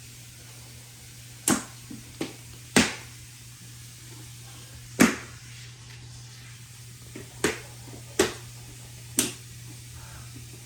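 A series of sharp knocks or taps at irregular intervals, about seven in all, over a steady low hum.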